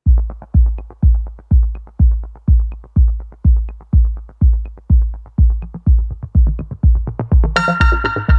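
Electronic dance music with a steady four-on-the-floor kick drum, about two beats a second; a bright synth chord comes in about a second before the end.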